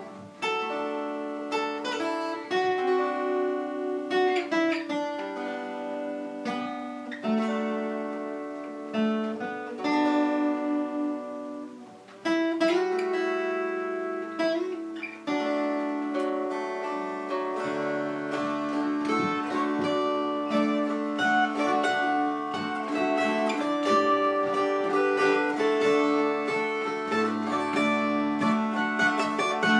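Steel-string acoustic guitar picked, playing a melody of single ringing notes over bass notes. The notes are slow and spaced out at first and grow busier about halfway through.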